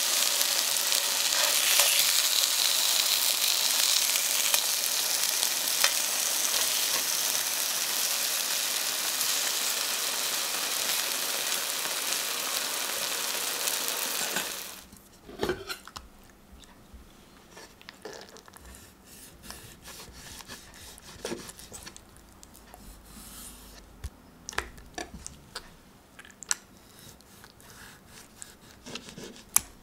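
Halved new potatoes sizzling in hot oil in a frying pan as tongs turn them, a loud steady hiss that cuts off suddenly about halfway through. Then a much quieter stretch of scattered light taps and scrapes as a knife slices a raw chicken breast open on a wooden cutting board.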